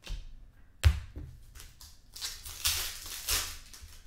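Trading cards being handled by hand, with a sharp tap about a second in. From about two seconds in there is a stretch of crinkling as a foil card pack wrapper is torn open.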